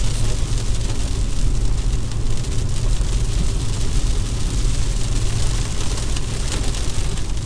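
Steady road noise inside a moving car on a wet road: a continuous low rumble with a hiss of tyres on water and rain.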